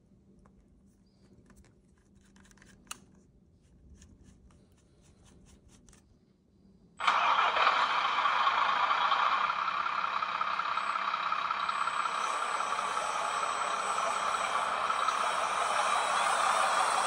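Electronic sound module in a scale RC semi truck playing a big-rig diesel engine starting and then running steadily, coming on suddenly about seven seconds in. Before it, faint clicks of a screwdriver on small screws.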